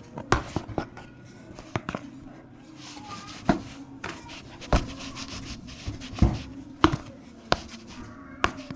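Irregular sharp knocks and handling noise, roughly one knock a second, like utensils or a container being worked by hand.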